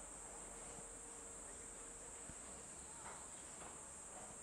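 Insects trilling steadily in one high, even band, with a couple of faint brief calls about three seconds in.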